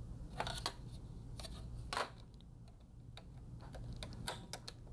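Scattered light clicks and taps of small items being handled and moved about on a workbench while searching for a bottle of flux, with a quick run of clicks near the end, over a low steady hum.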